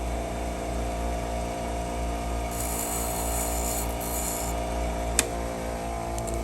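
A hand file rasping across a key in a long stroke of about two seconds, over a steady hum, with a single sharp click about five seconds in.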